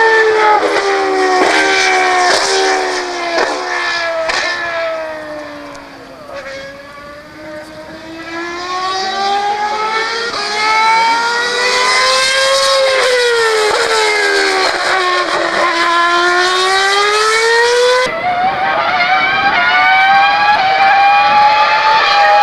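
Formula 1 car engine running on track: the revs drop in several steps with short clicks at the gear changes, then climb again under acceleration, drop once more and climb. About eighteen seconds in the sound changes abruptly and runs on steadily at higher revs.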